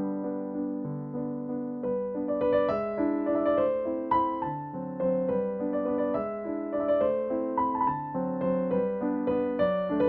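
Soft background piano music: a calm melody of held notes over gentle chords.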